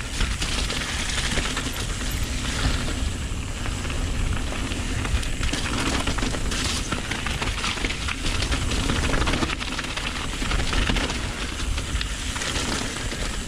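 Wind rushing and rumbling over an action camera's microphone as a downhill mountain bike rides a rocky trail at speed, with tyres crunching over loose stones and the bike rattling throughout.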